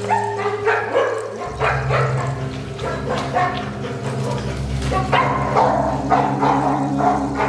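Large dog barking repeatedly in short, separate barks while lunging and tugging at a rubber tyre ring in play.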